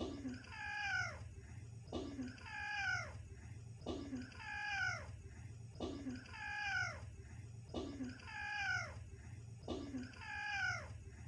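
A cat meowing six times at even intervals of about two seconds, each meow falling in pitch and opening with a short click, over a steady low hum.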